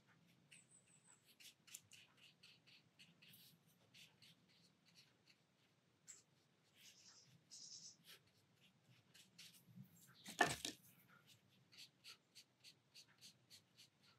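Near silence with faint watercolour brush strokes and dabs on paper: soft short scratchy swishes and scattered small ticks, and one brief louder knock about ten seconds in.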